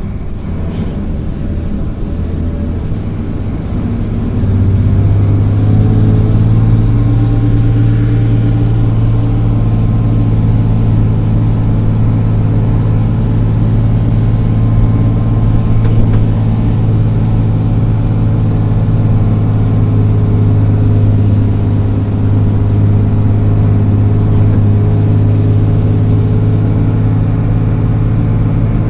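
Marcopolo Senior Midi bus's diesel engine heard from inside the passenger cabin, pulling the bus along the road. It gets louder and climbs a little in pitch over the first five seconds or so, then runs steadily.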